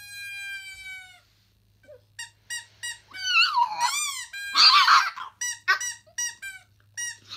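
Rubber squeaky toy squeaking, heard through laptop speakers: a rapid run of short squeaks, some drawn out and wavering in pitch. Before the squeaks, in the first second, a falling tone fades out.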